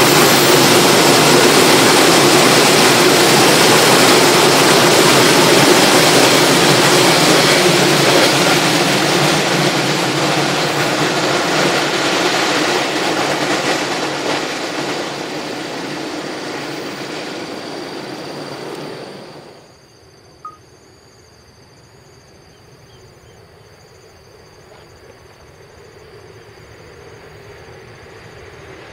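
Freight train of container flat wagons running past over the rails, a loud, steady rumble that slowly fades as the end of the train moves away. About two-thirds through, the sound cuts off abruptly into quiet open-air background, which grows slowly near the end as a distant train approaches.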